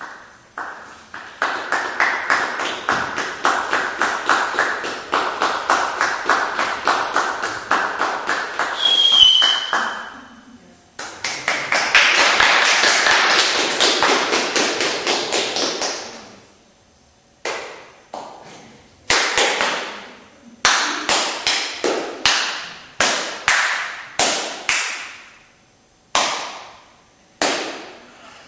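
Rhythmic percussive tapping on a stage: a steady run of quick taps at about four a second, then a dense flurry, then single heavier strikes spaced out, each ringing on in the hall.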